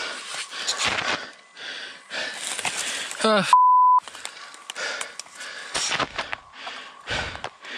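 A mountain biker winded after a heavy crash, breathing in ragged gasps and wheezes. About three and a half seconds in, a strained cry rises in pitch and is cut off by a half-second censor bleep, the loudest sound.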